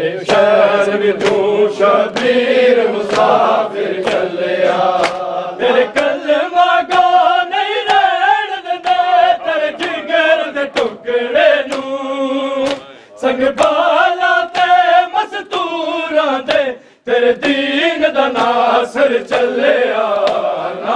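Noha, a Shia Muharram lament, chanted by men's voices in unison, over a steady beat of matam: open-hand strikes on the chest, about three every two seconds.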